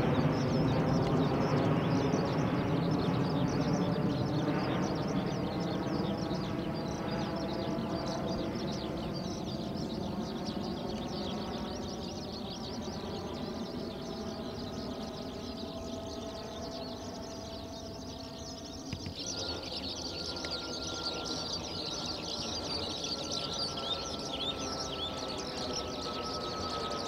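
Embraer ERJ170 jet overhead, its twin turbofan engines fading steadily as it flies away. From about two-thirds in, birds chirp and a thin high tone slides slowly down in pitch.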